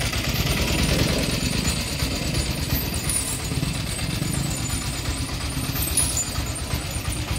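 An engine idling with a steady, rapidly pulsing low rumble.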